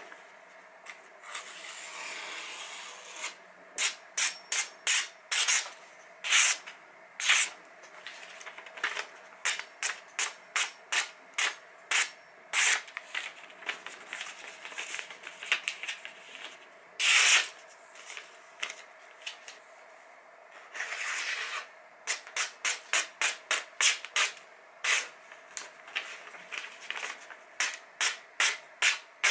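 A freshly sharpened knife slicing through a printed catalogue page in many quick strokes, each a short crisp swish, often three or four a second: a paper-cutting test of the new edge. A few longer rustles come as the page is handled between runs of cuts.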